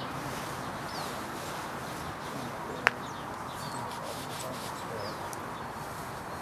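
Faint, short high chirps of small birds over steady outdoor background noise, with one sharp click just under three seconds in.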